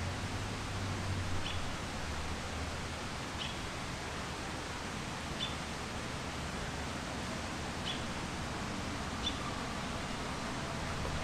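Steady rush of river water, with a bird giving a short high chirp about every two seconds.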